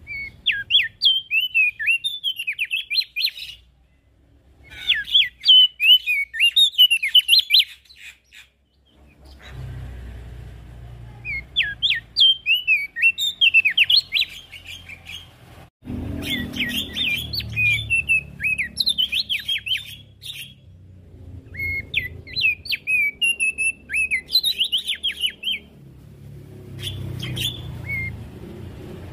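Opior jambul singing: six phrases of rapid, high chirping and twittering notes, each lasting three to four seconds, with pauses of one to three seconds between them.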